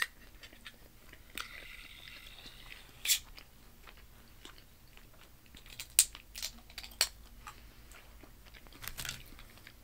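Sharp clicks and taps of a plastic knife and long acrylic nails against the tab and rim of an aluminium drink can, trying to pry it open. There is a short rasp about a second and a half in, and the loudest clicks come about three, six and seven seconds in.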